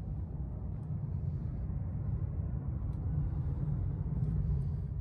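Low, steady rumble of outdoor background noise with no distinct events, growing a little louder toward the end.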